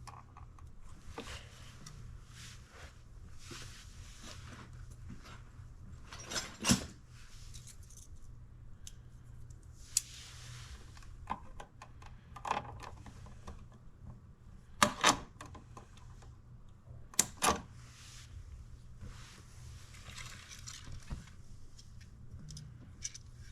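Hands and tools working the wires off an old electrical outlet: scattered small metallic clicks and clinks with soft rustling and scraping, and a few sharp snaps, the loudest about a third of the way in and twice more in the second half.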